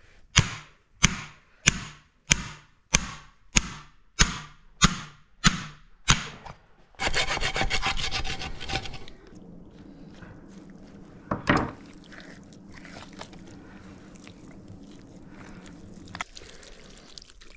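Hand saw cutting with about ten even strokes, roughly one and a half a second, then a faster two-second run of short rasping strokes. A low steady hum follows.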